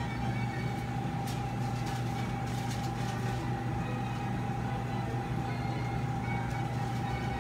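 Steady low machine hum with a steady higher tone above it, and a few faint clicks about one to three seconds in.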